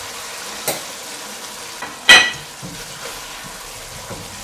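Metal spatula knocking and scraping against a wok while braised duck heads are lifted out, over the steady sizzle of the simmering braising sauce. The loudest sound is one sharp ringing clank about two seconds in, with lighter knocks before it and near the end.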